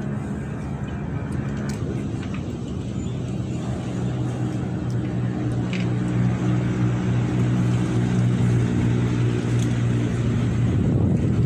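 Storm wind blowing hard, with a steady low hum under it that grows louder about halfway through.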